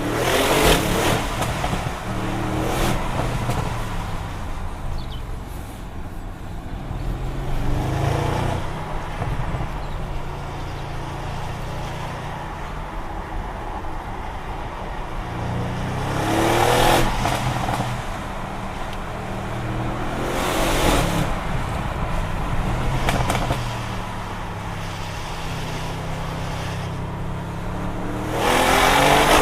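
Audi RS6 C7 Performance's 4.0-litre twin-turbo V8 being driven hard, revs climbing and dropping again and again through the gears. Short loud bursts of exhaust noise come about seven times along the way.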